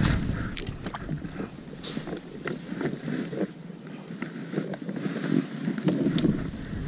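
Water lapping and sloshing against a plastic kayak hull, swelling and easing every second or so, with scattered small clicks and knocks.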